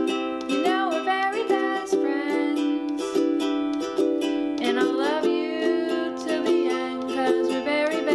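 Background music: a light, plucked ukulele tune with a sliding melody line over it.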